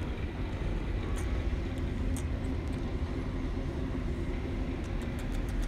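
Domestic cat purring steadily close to the microphone while being stroked, the purr of a contented cat. A few faint rustles of fur and hand against the microphone.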